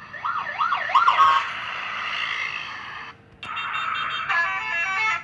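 Indonesian bus 'telolet' horn: a siren-like wail swinging up and down three times, then after a short break a multi-tone horn holding a chord and breaking into a quick run of stepped notes near the end.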